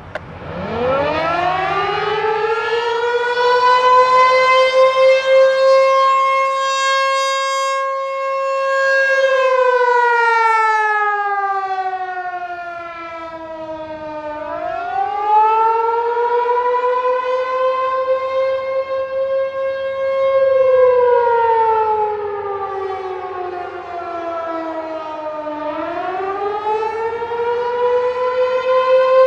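American Signal T-128 rotating outdoor warning siren sounding the Attack signal: it winds up from a stop over the first few seconds to a high wail, then slides down and back up again in slow cycles of about eleven seconds. Its loudness swells and fades as the narrow horn swings toward and away from the listener.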